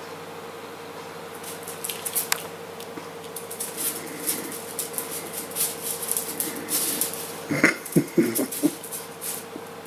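Jack Russell terrier's claws clicking and skittering on a hard kitchen floor as it dashes about chasing a laser pointer dot, in quick irregular taps. A few brief squeaky sounds come about three-quarters of the way through.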